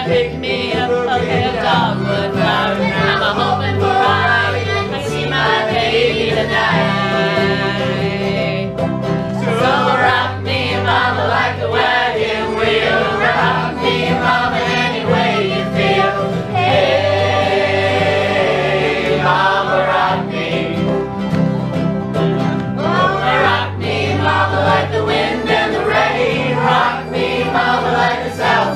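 Acoustic string band playing a bluegrass-style song on banjo, acoustic guitars and fiddle, with several voices singing together.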